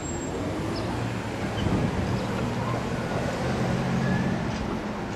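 City street traffic: cars driving past, their engines running low and steady, swelling twice as vehicles go by.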